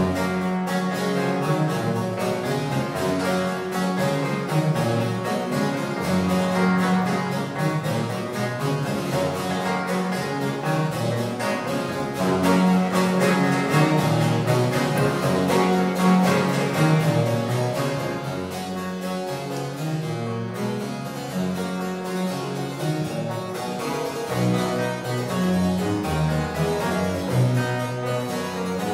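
Baroque chamber trio playing a ciaccona, with the harpsichord to the fore over a bowed violone and a theorbo.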